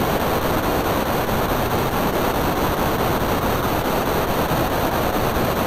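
Loud, steady rushing noise like static, with no distinct tones or rhythm.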